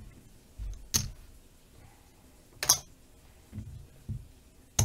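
Casino chips clicking against each other and onto the felt as a stack is handled on a craps table layout: a few separate sharp clicks a second or two apart.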